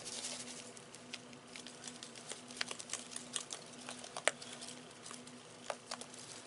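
Dry ranch seasoning shaken from a plastic shaker, the granules falling onto raw chicken thighs in a roasting pan: a faint, irregular patter of small ticks. A steady low hum runs underneath.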